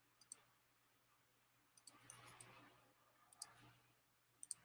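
A few faint computer mouse clicks, some in quick pairs, in near silence.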